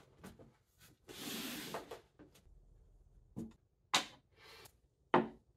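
An aluminium telescope carry case being opened and unpacked: a soft latch click, a rustle of about a second as the lid and foam are handled, then a few sharp knocks and clacks as the refractor is set down on the wooden tabletop.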